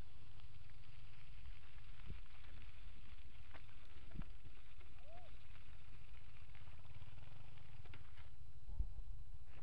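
Steady low wind rumble on a moving camera's microphone, with a few faint clicks and one brief faint high note about halfway through.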